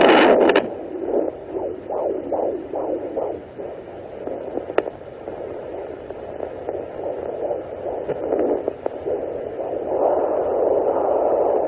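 Fetal heartbeat picked up by a Sonoline B pocket fetal Doppler and played through its speaker: fast, even pulsing at about two and a half beats a second. A loud scratchy rustle of the probe opens it, and a louder steady swishing comes in near the end.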